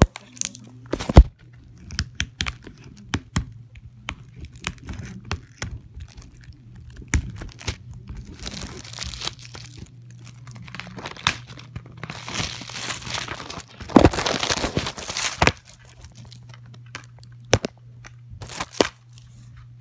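Clear plastic shrink wrap being torn and crinkled off a Blu-ray case, with sharp clicks and snaps from the plastic case being handled. The loudest snap comes about a second in, and the crinkling runs longest in two stretches in the middle. A low steady hum runs underneath.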